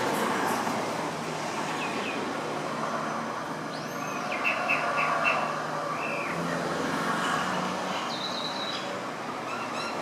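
Common mynas calling: a quick series of short chirping notes about four seconds in, and a few more near the end, over a steady background rumble.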